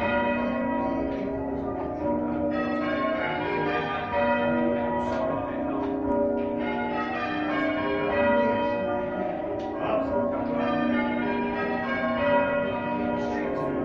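Church bells ringing: many bells struck one after another in quick succession, their tones overlapping without a break.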